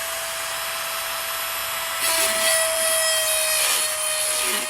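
Power tool running with a steady whine, its cutting noise growing louder about two seconds in, then easing off.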